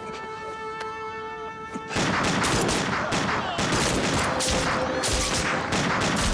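Held music notes, then about two seconds in a line of pistols opens fire: a long, rapid volley of overlapping gunshots, over music.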